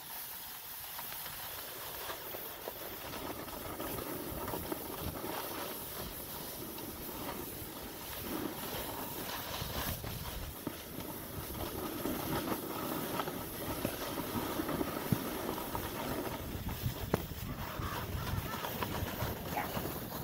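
Snowboard sliding and scraping over groomed, packed snow during a downhill run, mixed with wind rushing on the microphone. The hiss grows gradually louder, with a few short clicks.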